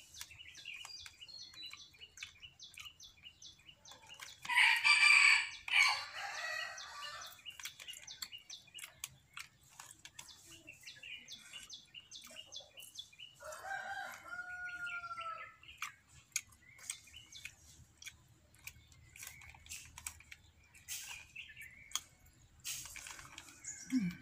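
A rooster crowing once, loud and about two seconds long, about four seconds in, with a shorter fowl call some ten seconds later. Small birds chirp repeatedly in the first part, and faint clicks are scattered throughout.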